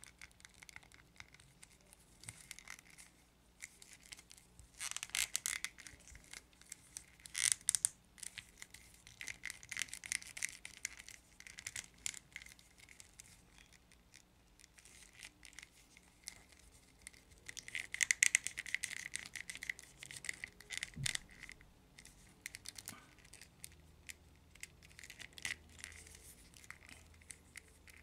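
Plastic joints of a bootleg NECA arcade Teenage Mutant Ninja Turtles action figure clicking and rattling as its limbs are turned by hand, in uneven clusters of quick clicks with a few louder bunches.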